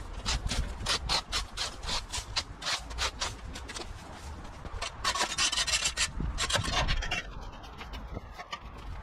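Rake scraping over brick paving in quick repeated strokes as pulled weeds are dragged together. The scraping grows louder and more continuous about five seconds in, then eases off near the end.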